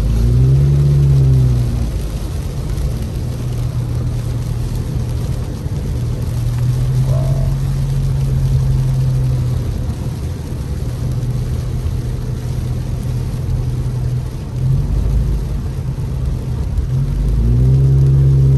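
Car driving on a rain-soaked road, heard from inside the cabin: a steady engine drone under an even hiss of tyres on wet pavement and rain on the car. The engine note rises and falls about a second in and climbs again near the end.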